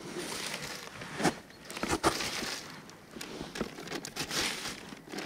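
Plastic bag crinkling and rustling as hands pack millet groundbait into a spring feeder, an irregular run of rustles and short crunches with a couple of sharper crackles about a second and two seconds in.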